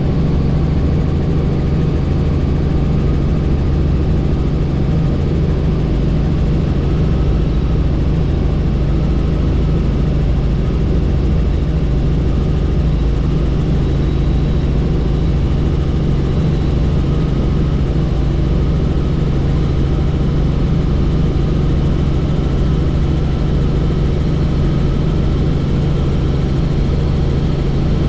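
Helicopter in flight: a steady drone of rotor and engine, with air rushing past the open doors.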